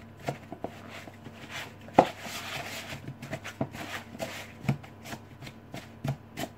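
Wooden spoon beating softened butter and caster sugar together in a plastic mixing bowl, creaming them by hand: irregular scraping and tapping strokes, with one sharp knock about two seconds in.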